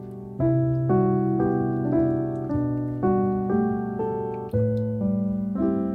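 Background piano music, with notes or chords struck about twice a second, each dying away.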